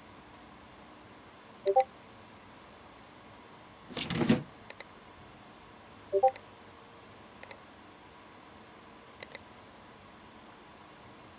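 Scattered sharp clicks and light clinks of small hard parts being handled, with a brief louder scrape or rustle about four seconds in, over a faint steady hiss.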